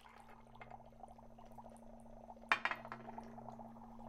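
Liquid poured from a glass into a mug, then bubbling and fizzing as the mixture gives off dry-ice-like fog, growing slowly louder. There is one sharp tick about two and a half seconds in, over a steady low hum.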